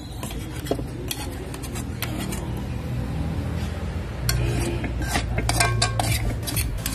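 A metal spatula stirring in a metal wok, scraping and clinking against the pan in irregular strokes.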